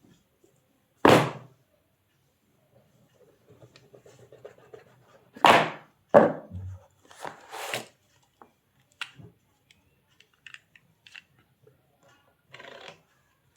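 Packaging being handled and opened: a few sharp, loud rustles and knocks, the loudest about a second in and two more around five to six seconds in, with quieter crinkling and small clicks between.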